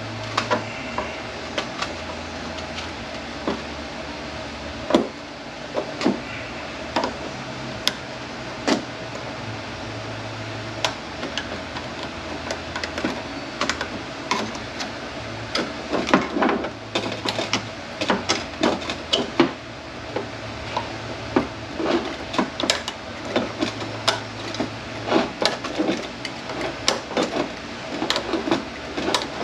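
Scattered metal clinks and knocks of hand tools and transmission parts being handled while the rubber-molded clutch pistons of a Mercedes 722.9 automatic transmission are taken out of their drums, over a steady hum. The knocks come thicker about halfway through.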